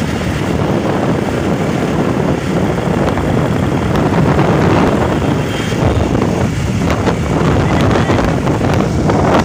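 Motorcycles running along a road, their engine noise under a steady rush of wind buffeting the microphone of a phone carried on a moving bike.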